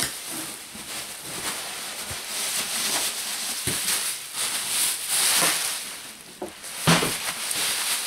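Plastic bubble wrap being pulled out of a cardboard box and handled, a continuous crinkling and rustling, with a couple of short knocks, one about halfway through and another near the end.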